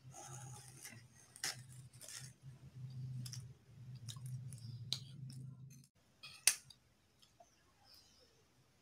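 Metal spoon clinking and scraping against a ceramic plate while eating, with several sharp clinks; the loudest comes about six and a half seconds in. A low hum underneath stops abruptly about six seconds in.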